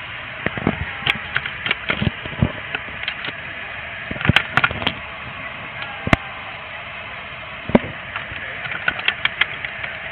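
Scattered clicks and knocks of a plastic Husky tool box with metal latches being handled and unlatched in a car trunk, in small clusters, over a steady hiss.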